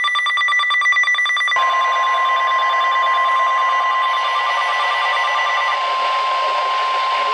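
NOAA Weather Radio alert: a fast-pulsing buzzy alert tone stops about a second and a half in. The steady single-pitch 1050 Hz warning alarm tone then takes over, over radio hiss, heralding a severe thunderstorm warning.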